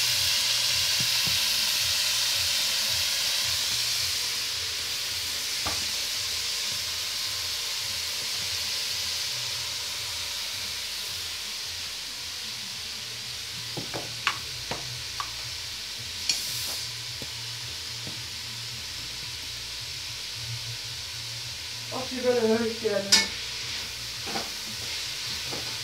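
Minced meat and onions frying in a pan: a steady sizzle that eases off over the first dozen seconds and then carries on more quietly. A few short clacks come around the middle and again near the end.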